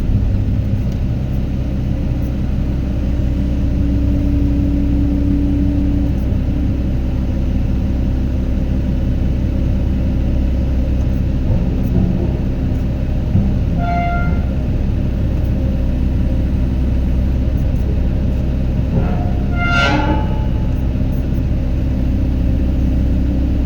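Excavator's diesel engine running steadily, a constant low drone, with brief higher-pitched tones about 14 and 20 seconds in.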